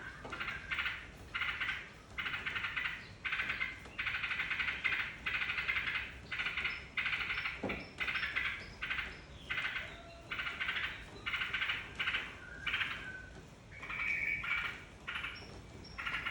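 Yellow-vented bulbul (trucukan) song: a fast run of bubbly, chattering phrases, about two a second, with no break.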